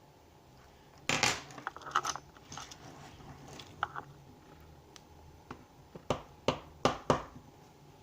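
Small metal lock parts and tools being handled on a work surface: a short rattling clatter about a second in, then a series of sharp clicks near the end.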